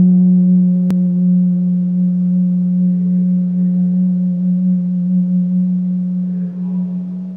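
A low, steady humming drone tone with overtones and a slow wobble, gradually fading and dying away near the end. A faint click comes about a second in.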